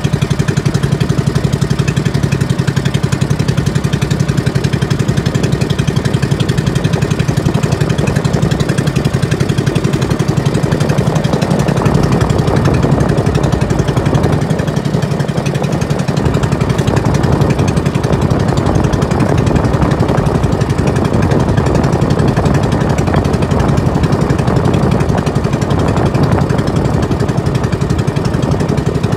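Small engine of a motorised outrigger boat running steadily, a fast even pulsing beat.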